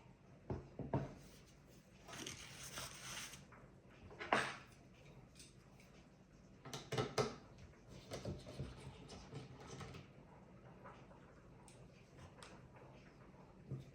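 Small hardware being handled by hand: scattered clicks and knocks, with a scraping rustle a couple of seconds in and a sharper knock soon after.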